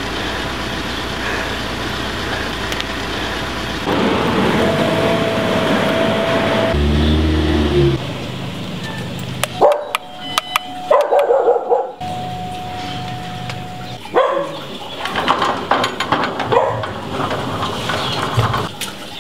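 A dog barks in short bursts while an electric doorbell rings with a steady tone as its button is pressed.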